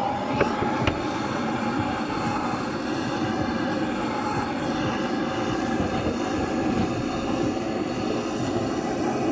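Handheld gas blowtorch burning steadily, a continuous rushing roar as the chef sears salmon-topped sushi rolls. Two short sharp clicks come about a second in.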